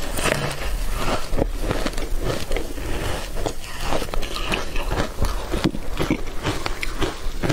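Close-miked biting and chewing of a soft, layered food coated in green powder, with many small crackling clicks throughout.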